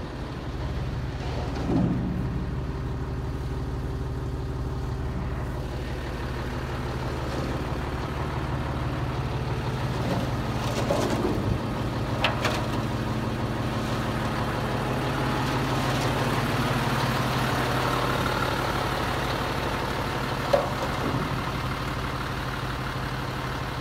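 Scania T113 concrete mixer truck's diesel engine idling steadily, with a few clanks and knocks, the sharpest one near the end.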